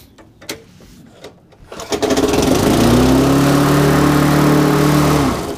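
An early Briggs & Stratton single-cylinder lawnmower engine is pull-started about two seconds in. It revs up, runs steadily at speed for about three seconds, then cuts out near the end. This is a test run after its governor spring was adjusted to raise the speed and cure its hunting.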